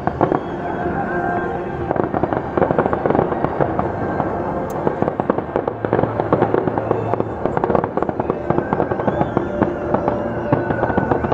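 Fireworks going off in rapid, dense crackles and pops, with music playing underneath.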